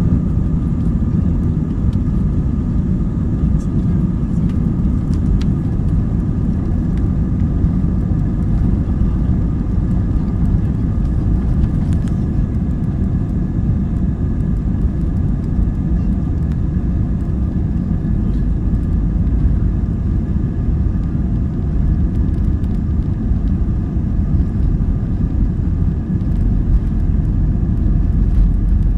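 Jet airliner's engines at takeoff power heard from inside the cabin, a steady loud rumble with a few thin fan whines, during the takeoff roll. The deep rumble grows stronger near the end as the aircraft nears liftoff.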